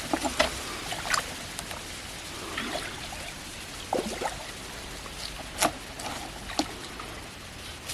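Water trickling and splashing, with a few short, sharp splashes scattered through.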